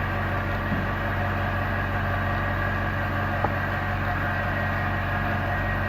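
Steady machine hum of workshop equipment, even in level and pitch, with one faint click about three and a half seconds in.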